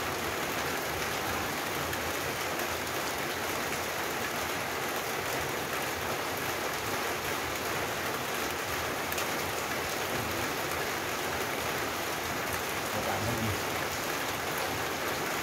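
Steady rain falling, an even, unbroken hiss that holds the same level throughout.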